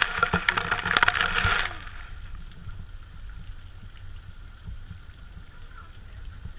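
Sea spray from a lava-rock blowhole splashing down over the camera, a loud splashing hiss with many sharp drop hits that stops abruptly about two seconds in. A steady low rumble of sea and wind follows.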